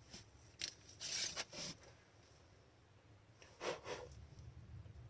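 Faint rustling and sliding of trading cards and plastic card holders being handled, with a few short scrapes about a second in and again near the middle.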